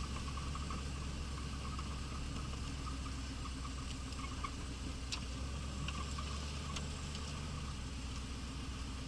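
Pontiac Trans Am's small-block V8 idling steadily in stopped traffic, heard from inside the cabin as a low hum, with a faint on-and-off buzz and a few light clicks.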